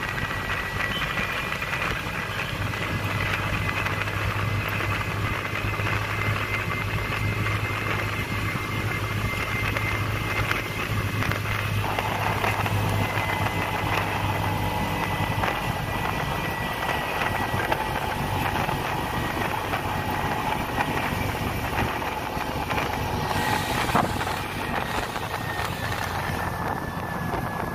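Engine of a small vehicle running steadily on the move, with road and wind noise. A brief louder noise comes near the end.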